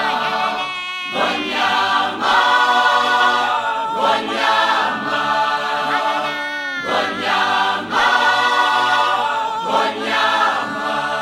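Choral music: a group of voices singing in phrases a couple of seconds long, with sliding pitches between the phrases.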